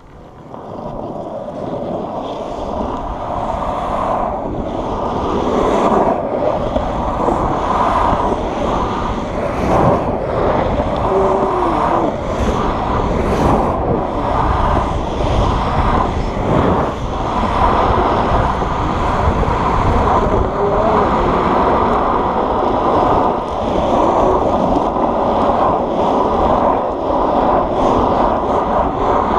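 Longboard's urethane wheels rolling fast on asphalt: a steady rolling rumble that builds over the first few seconds as the board picks up speed, mixed with wind buffeting the microphone, with scattered sharp clicks as the wheels cross cracks and seams in the road.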